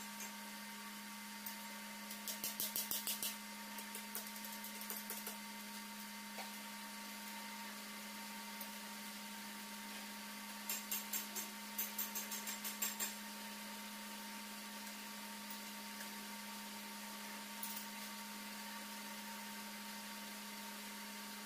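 Milling machine running with a steady hum while cutting a helical gear, with two short runs of rapid clicking, about two seconds in and again about eleven seconds in.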